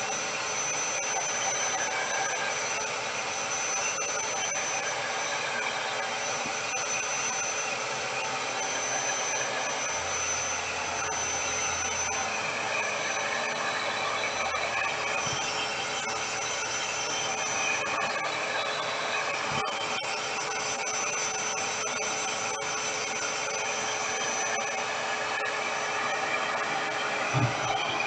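RevAir reverse-air hair dryer running steadily on a raised setting, drawing a section of damp hair into its wand: a very noisy, even rush of air with a constant tone running through it. A short thump near the end.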